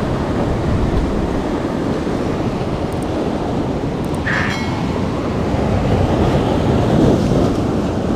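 Rough surf washing over the rocks, with wind buffeting the microphone; a brief tone sounds about four seconds in.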